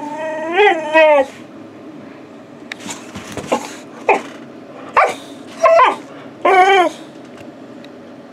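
Boxer dog "talking": a long pitched vocal call that wavers up and down in the first second, then a string of about six short whining yips over the next few seconds.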